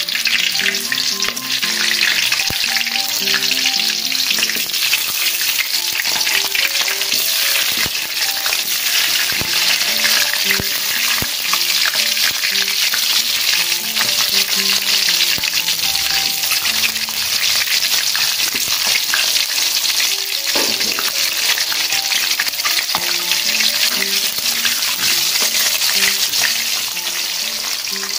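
Small green eggplants deep-frying in hot oil in a wok: a steady, dense sizzle and crackle of the oil.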